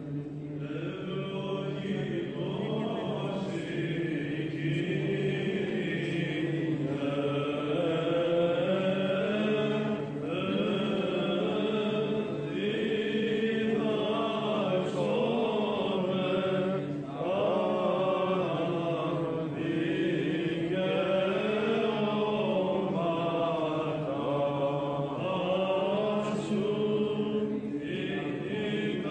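Byzantine chant: a male cantor sings a melismatic hymn into a microphone, the melody winding up and down in long phrases with a few short breaks.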